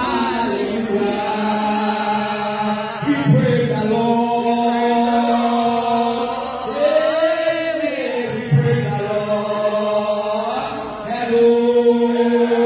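Slow religious chant: a singing voice holding long notes and gliding from one pitch to the next every couple of seconds.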